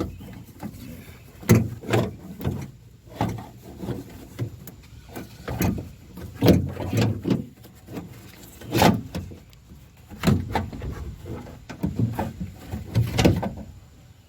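Irregular clunks and rattles from a hand working a power door lock actuator loose inside a car's rear door cavity, knocking it against the door's inner metal panel.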